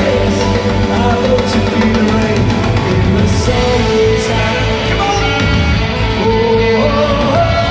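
Live rock band playing loudly: an electric guitar's sustained, sliding lead line over drums and bass, with no vocal line at this point.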